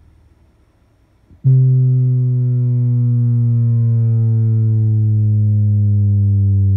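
Onn 36-inch 2.1 soundbar playing a bass calibration test tone. After a quiet second and a half, a loud, buzzy low tone starts and slides slowly down in pitch (about 114 to 101 Hz), then cuts off suddenly.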